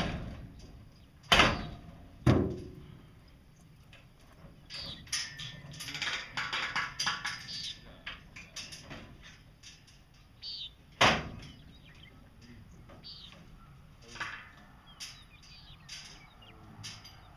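Sharp metallic bangs and clatter from a horse trailer as a horse is loaded: a bang right at the start, two more in quick succession a second or two in, and one more about eleven seconds in, with rattling and knocking in between.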